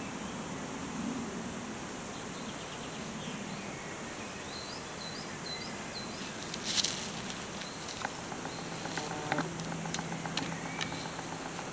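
Handling noise from a tent being pitched in woodland: a brief loud rustle about seven seconds in and scattered light clicks afterwards. Forest background with a short run of bird chirps about halfway through, and a low steady hum joining near the end.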